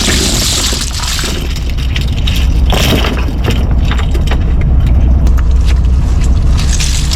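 Small fishing boat's engine running with a steady low rumble, under irregular clattering and knocks from gear being handled on deck.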